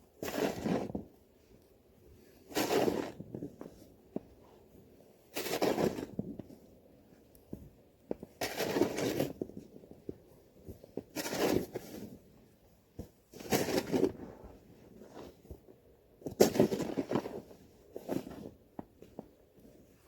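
Deep fresh snow crunching in eight heavy strokes, about one every two and a half to three seconds.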